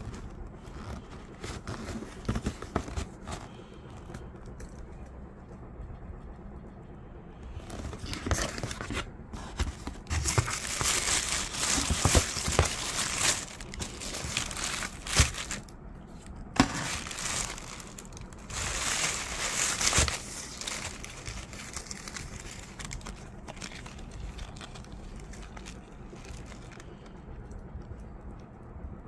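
Tissue paper crinkling and rustling as sneakers are unwrapped from their shoebox, in loud stretches through the middle, with light knocks from handling the cardboard box.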